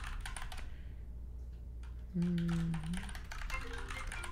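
Typing on a computer keyboard, a quick run of keystrokes at the start. About two seconds in comes a low steady buzz lasting just under a second, and near the end a phone's ringtone starts with short high notes.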